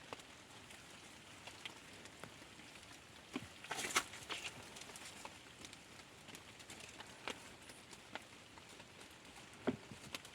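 Light rain pattering, with scattered sharp clicks and knocks; the knocks cluster briefly about four seconds in.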